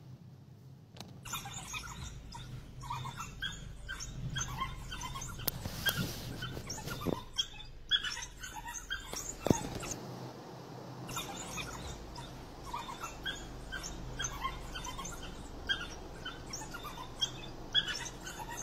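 A pack of African wild dogs twittering: many short, high-pitched chirping calls overlapping, starting about a second in and going on almost without a break. A few sharp clicks come near the middle.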